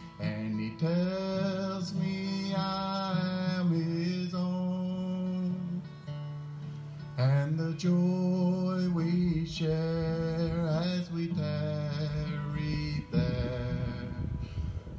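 A song with acoustic guitar accompanying a singing voice.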